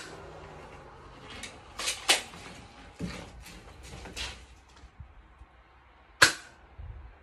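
BB gun fired with one loud, sharp crack about six seconds in. A few lighter clicks and knocks come before it, around two and three seconds in.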